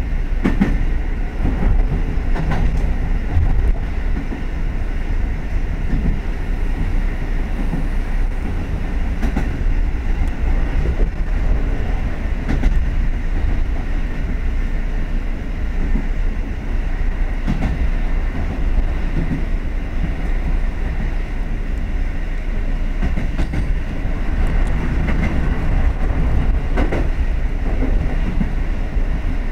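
Kotoden 1080-series electric train running along the line, heard from inside its cab: a steady low rumble of wheels and running gear, with a clack now and then as the wheels pass rail joints.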